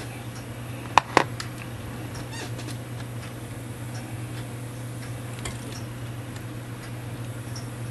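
Small metallic clicks and taps as a brass clock movement is handled and a set screw worked loose, with two sharp clicks about a second in, over a steady low hum.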